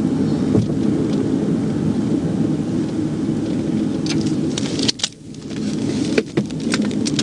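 Steady road and engine rumble heard inside a police patrol car during a pursuit, with scattered crackles and clicks in the second half and a brief drop-out about five seconds in.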